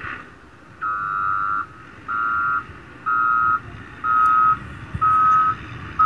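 Reversing alarm on a Caterpillar motor grader beeping steadily, about once a second from about a second in, over its engine running; the beeping signals the machine is backing up.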